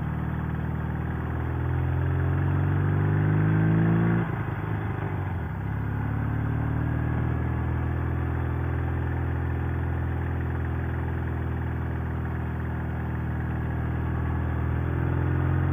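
Sidecar motorcycle engine accelerating in first gear, its pitch rising for about four seconds, then dropping suddenly as the rider shifts up. After a short lull it pulls steadily in the next gear, rising a little near the end.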